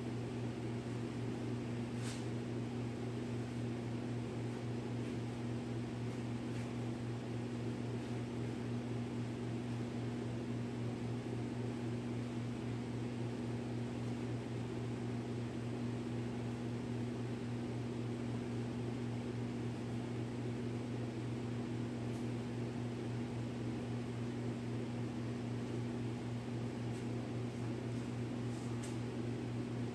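Steady electrical hum with a fan-like hiss, unchanging throughout, with a faint click about two seconds in.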